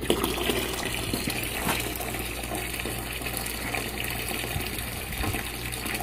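Water rushing steadily out of a steam boiler's brass drain valve into a bucket, starting suddenly as the valve is opened. The boiler is being drained of dirty water to drop its water level.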